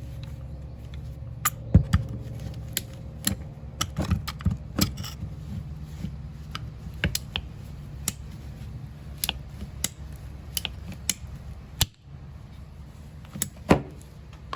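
Irregular sharp clicks and taps of a tool working on PVC pipe as the broken end of the water line is cut off, over a steady low hum.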